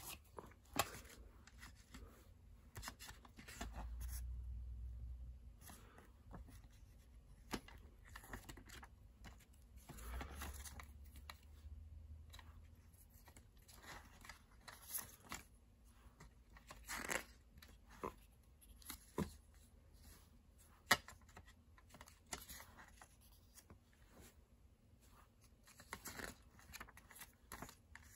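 Quiet paper rustling and page-turning as a CD lyric booklet is handled and leafed through, with scattered light clicks and a sharp click about two-thirds of the way through.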